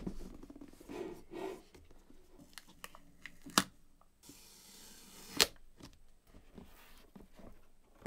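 Cardboard packaging being handled: the outer sleeve slid off a rigid box and the inner lid lifted, with rustling and scraping, a sliding rasp from about four seconds in, and two sharp taps, one about three and a half seconds in and a louder one a little after five.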